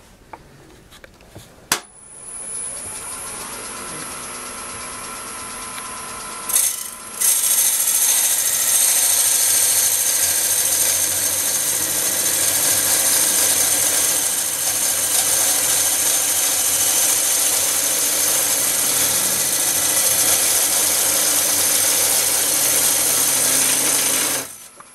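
A wood lathe is switched on with a click about two seconds in and runs steadily. From about seven seconds a Korpro cutter on a Oneway coring system cuts into the spinning bowl blank with a loud, steady hiss as it throws out ribbons of chips, stopping suddenly near the end.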